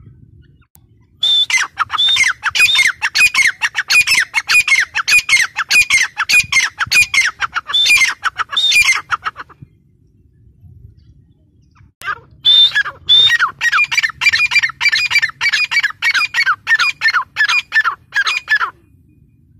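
Grey francolin calling: two long bouts of loud, rapid, evenly repeated notes, about four a second, each bout opening on a higher note and lasting six to eight seconds, with a pause of about three seconds between them.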